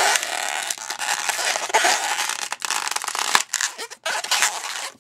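Latex modelling balloon rubbing and crackling under the fingers as it is pressed and twisted into a pinch twist, a dense scratchy sound with short breaks near the end.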